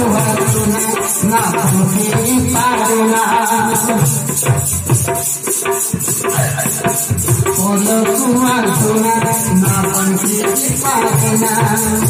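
Live folk-theatre music: a wavering melody line carried over a steady, evenly ticking percussion beat.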